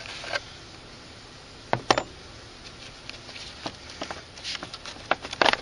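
A few scattered sharp clicks and light knocks from handling the battery's hard plastic cover and cables, with a cluster of them near the end.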